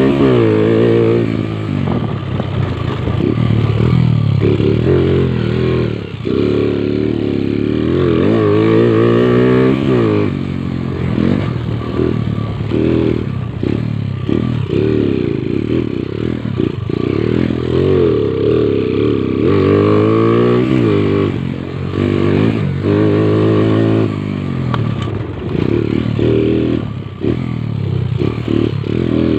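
Motorcycle engine revving up and dropping back over and over, as the bike is ridden around a practice track with repeated throttle and gear changes.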